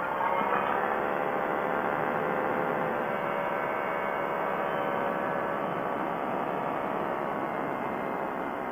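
Quicksilver ultralight's engine and propeller droning steadily in flight, with wind noise behind. The engine picks up slightly in loudness and pitch right at the start, then holds steady.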